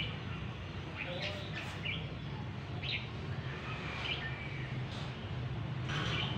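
Caged red-whiskered bulbuls singing in short scattered phrases, contest song between rival birds, over a steady low hum.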